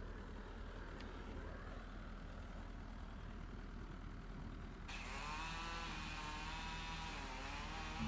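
Compact excavator running steadily. About five seconds in, the sound changes abruptly to a higher whine that rises and falls in pitch.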